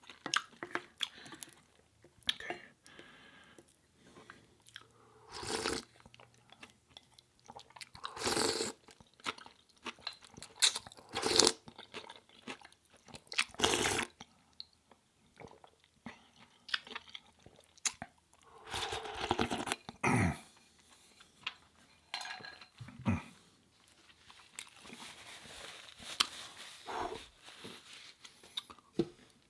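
Close-up eating sounds: chewing and crunching on ramen noodles with seaweed crisps, with several louder bursts a few seconds apart.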